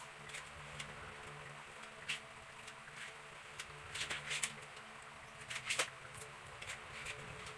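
Bananas being peeled with a kitchen knife: scattered small clicks and scrapes of the blade and the peel being stripped, with a few sharper taps about two, four and six seconds in.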